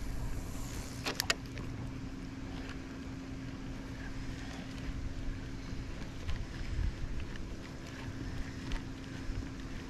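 Steady low hum of a boat's motor, with wind noise on the microphone and a few sharp clicks about a second in.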